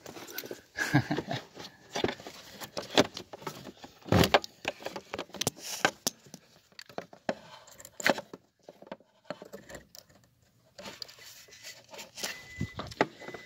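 Irregular metallic clicks and rattles of jumper-cable clamps being handled and clipped on under the hood.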